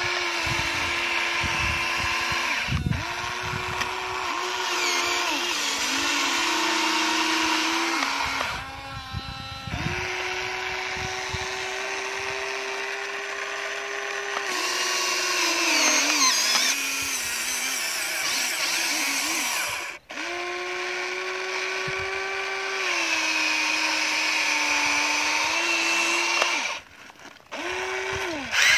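Small electric motors of a Huina remote-control model excavator whining as it digs, the pitch stepping up and down as the boom, bucket and tracks start and stop, with brief pauses about nine seconds in and near the end.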